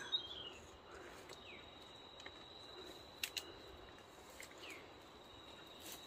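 Steady high-pitched insect drone, like a cricket, with a few faint, short, falling bird chirps and a sharp click about three seconds in.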